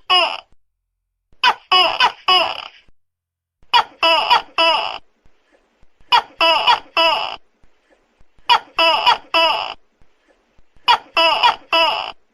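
Tokay gecko calling loudly: short bursts of three or four quick, pitched "to-kek" syllables, repeated about every two and a half seconds, five times over.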